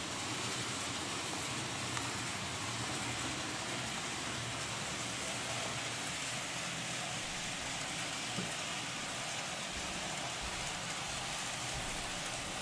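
Steady, even hiss with a low rumble underneath: the running noise and room tone around an N-scale model railway layout with a train in motion.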